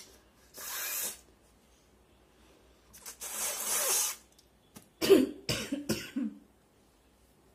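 A woman blowing her nose hard in two long hissing blows, then a quick run of four or five short coughs about five seconds in.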